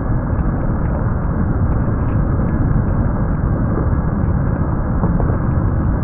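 A steady, loud low rumbling noise with no pitch or rhythm, dotted with faint scattered ticks.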